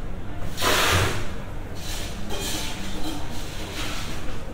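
Coffee shop ambience: a steady low room hum with faint voices, and a brief rush of hissing noise about a second in.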